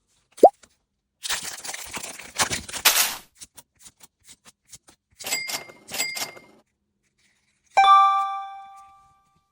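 A string of edited-in sound effects: a short rising blip, a couple of seconds of rustling, two quick bright chimes, then a bell-like ding that rings out and fades.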